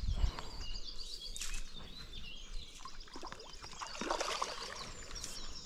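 Songbirds chirping, with water splashing and sloshing about a second and a half in and again about four seconds in as a small hooked carp is played in. A dull low bump right at the start.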